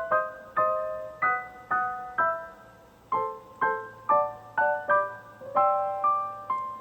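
Piano music: a gentle melody of single struck notes, about two a second, each ringing and fading.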